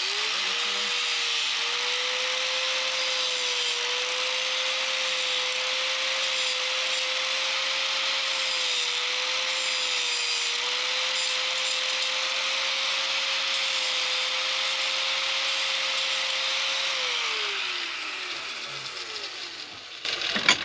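Angle grinder spinning up and running at speed while its disc cuts a notch into PVC pipe held in a vise, its pitch dipping slightly now and then as the cut loads it. Near the end it is switched off and winds down with a falling pitch, followed by a short knock.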